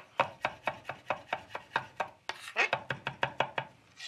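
Chef's knife rapidly chopping a smashed garlic clove on a wooden cutting board, about five quick knocks a second, with a short pause about two seconds in.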